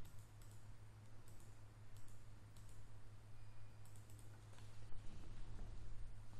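Faint computer mouse clicks, several at irregular intervals, over a steady low hum.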